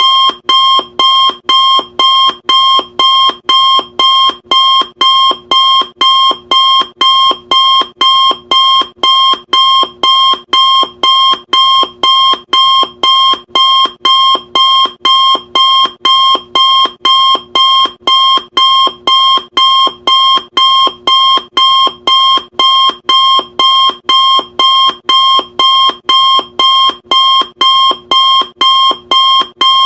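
Electronic countdown-timer alarm beeping loudly and steadily, about three beeps every two seconds, each beep a single high tone that starts sharply and stops short.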